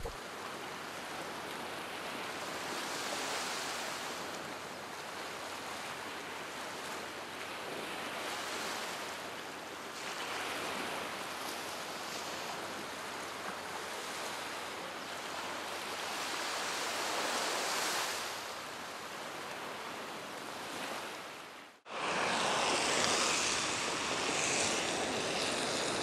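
Surf washing on a beach, a steady rush that swells and eases every few seconds. About 22 seconds in the sound cuts and gives way to a brighter, steadier hiss of a Coleman Sportster II gasoline single burner running under a frying pan, with the surf behind it.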